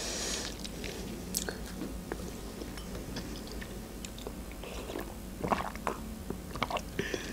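Mouth sounds of eating cotton candy: quiet chewing with small lip and tongue clicks, then a few short sips from a mug about two-thirds of the way in.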